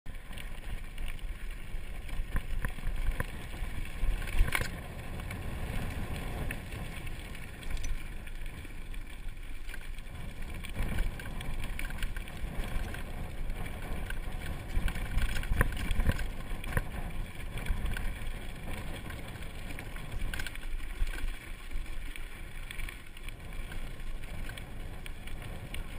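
Cannondale Trail SL1 mountain bike rolling down a rocky gravel track: a steady rough rumble of tyres on gravel and wind on the microphone, with the bike rattling and sharp knocks as it hits stones, the loudest about four and a half seconds in.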